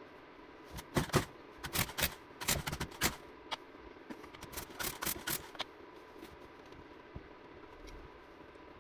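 Quick clicks and rattles of small hard parts being handled, clustered over the first five seconds or so, over a faint steady hum.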